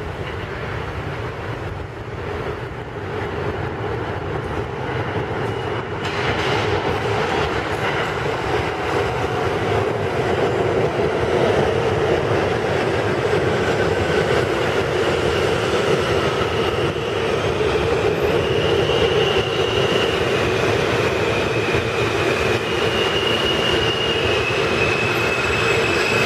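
New York City Subway R160A-1 train arriving into an underground station. Its rumble grows louder about six seconds in as the cars reach the platform, and high-pitched squeals come and go in the second half as it slows to a stop.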